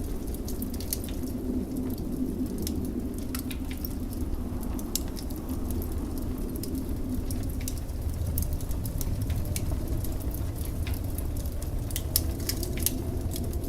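Wood fire crackling in a fireplace, with many irregular sharp pops and snaps, over the steady low rumble of blizzard wind outside, a faint howl in the wind swelling and fading.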